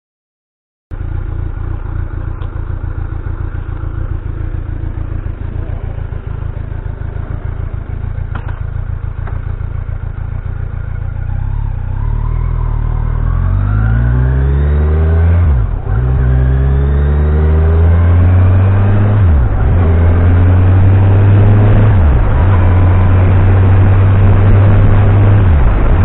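Kawasaki Ninja 1000's inline-four engine running, first a steady low drone, then from about halfway through accelerating hard, its pitch climbing and dropping back at each of about four upshifts as it grows louder.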